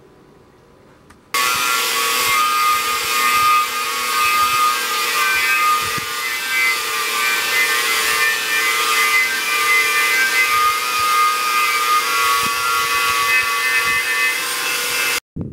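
Angle grinder with a knotted wire wheel scouring old paint off a steel smoker tank: a loud, steady whine over harsh scraping that starts abruptly about a second in and cuts off suddenly just before the end.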